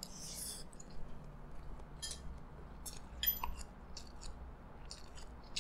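Faint chewing of a mouthful of fried rice with shrimp: scattered soft wet smacks and clicks of the mouth at irregular intervals, with a short breathy hiss as the spoon goes in.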